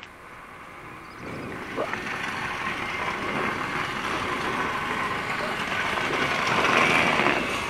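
Engine of a road-works truck running steadily, growing louder as it is approached and passed, loudest near the end.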